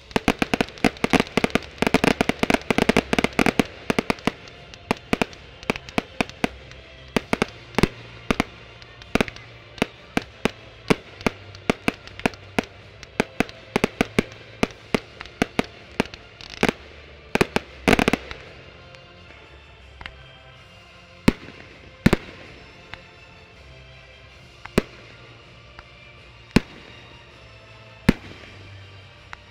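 Fireworks display: aerial shells and mortars bursting with sharp bangs. A rapid barrage opens it, the bangs then come about twice a second, and in the last ten seconds they thin to single reports a second or two apart.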